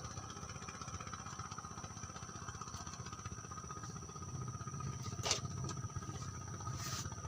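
Strong wind buffeting the microphone, a steady fluttering rumble, with two steady high insect-like tones over it and two sharp clicks about five and seven seconds in.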